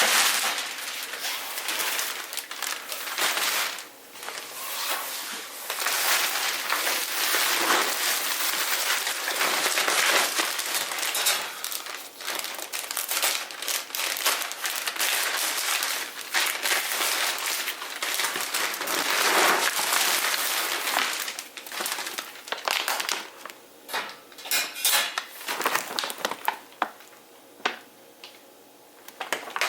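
Packaging crinkling and rustling as it is handled, in irregular bursts, thinning to a few scattered crackles near the end.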